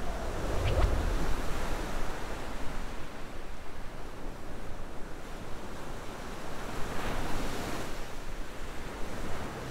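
Steady rushing noise of sea waves and wind, swelling about a second in and again around seven to eight seconds in.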